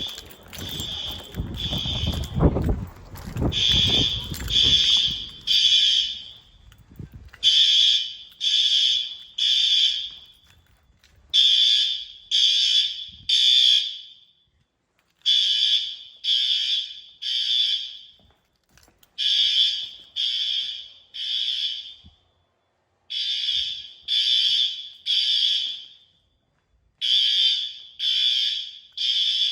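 Fire alarm horn strobes (System Sensor L-Series horns) sounding the temporal-3 evacuation pattern: three high-pitched blasts about a second apart, then a pause, repeating about every four seconds. For the first several seconds a low rumble of movement is heard under the horns.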